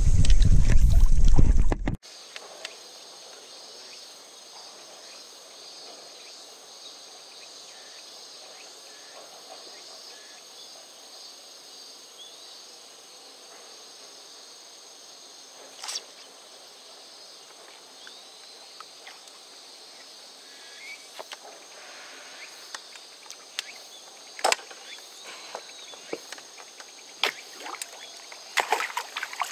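About two seconds of loud water sloshing and handling noise from a landing net in the pond water, then quiet pondside ambience: a steady high insect drone with a few faint bird chirps, and scattered light taps near the end.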